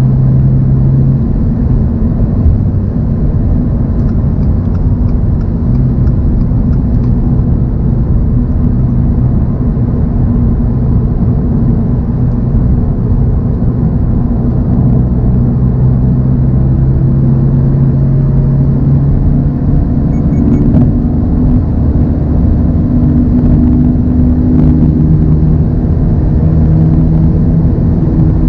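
2024 Toyota GR86's 2.4-litre flat-four engine running at steady cruising revs, with tyre and road noise. The engine note shifts a little in pitch in the last third.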